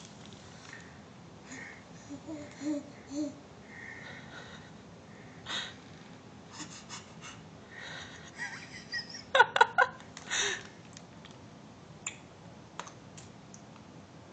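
Baby vocalizing while being spoon-fed: a few short low coos about two to three seconds in, then a loud run of quick, breathy squeals about nine to ten seconds in.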